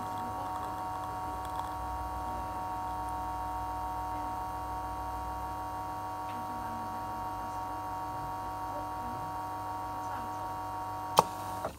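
Faema Faemina espresso machine's pump humming steadily while an espresso shot pulls. There is a single sharp click shortly before the hum cuts off at the very end.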